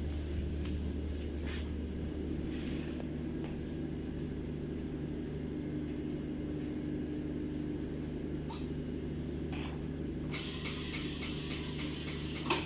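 Steady low hum of tyre-shop machinery, with a hiss of compressed air starting about ten seconds in and lasting a couple of seconds.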